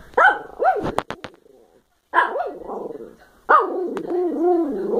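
Small dogs barking and yipping in play: a string of short, high barks with a brief pause partway. A few sharp clicks come about a second in, and wavering, whiny barks follow near the end.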